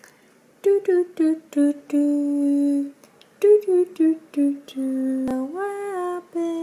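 A woman humming a short tune: two runs of quick falling notes, each ending on a long held low note, then a slide up into a held note that steps down and lingers.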